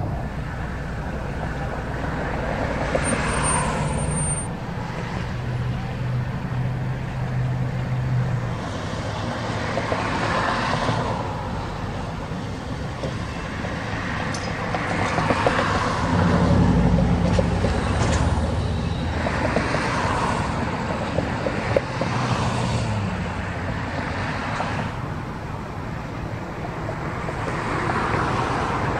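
Pickup trucks towing large horse trailers and other road traffic drive past one after another. With each pass-by, engine hum and tyre noise rise and fade, several times over.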